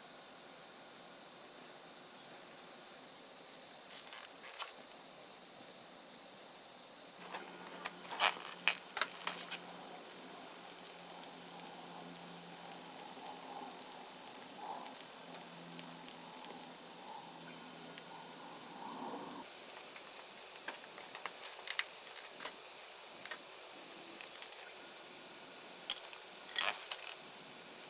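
Burning wood crackling and popping in a stainless-steel mesh fire pit, with light metallic clinks and rattles; a steady low hum comes in about seven seconds in and stops a few seconds before the end.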